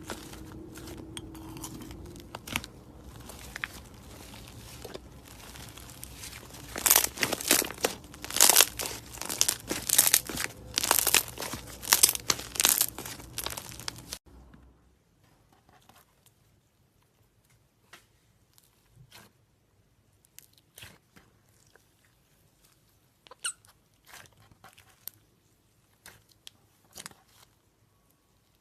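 Slime being squeezed, poked and stretched by hand, crackling and popping. A run of loud crunchy crackles comes about seven to thirteen seconds in, over a low hum; then an abrupt cut about fourteen seconds in leads to a much quieter clip of scattered pops and clicks.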